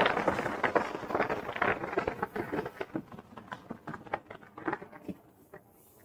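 Snowboard sliding over hard-packed snow: a scraping rush with irregular crackling ticks, fading away to near silence over the last couple of seconds.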